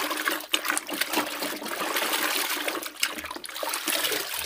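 Soapy water splashing and sloshing in a basin as a plastic toy truck is swished through it by hand, with water pouring off the toy as it is lifted out near the end.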